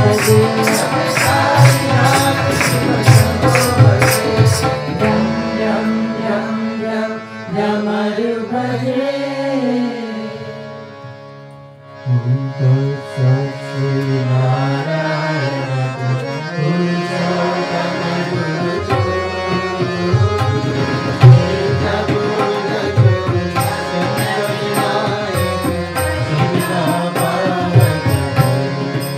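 Devotional bhajan singing with keyboard, hand drum and tambourine. The music dies down about ten seconds in, then the singing and drumming start up again about two seconds later. The tambourine jingles are heard at the start and again near the end.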